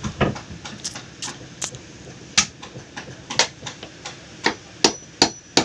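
Claw hammer striking the wooden planking of a boat hull: irregular sharp knocks, about a second apart at first and coming quicker near the end.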